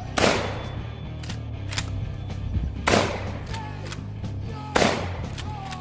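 Three 12 gauge shotgun shots from a Black Aces Tactical Pro Series L lever-action, about two to three seconds apart. Sharper clacks of the lever being worked come between the shots.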